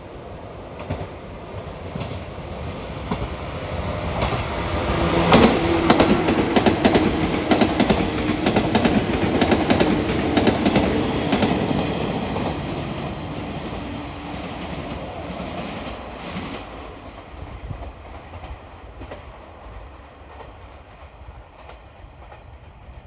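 A train passing: wheels clicking over the rail joints, rising to a peak about five to twelve seconds in with a steady hum, then fading away.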